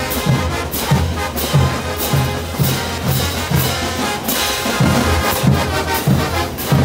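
Bolivian marching brass band playing: trumpets, trombones and sousaphones over bass drums, snare drums and crashing cymbals, with a steady beat of about two strokes a second.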